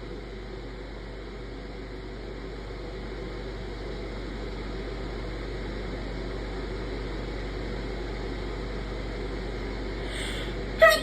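A steady hiss of background noise, like a fan, runs for most of the time. Near the end there is a quick breath in, then a person sneezes once, short, sharp and loud.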